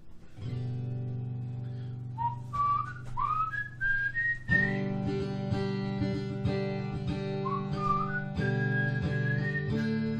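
Acoustic guitar strumming sustained chords, with a whistled melody sliding between notes over it from about two seconds in; the chord changes about halfway through and again near the end.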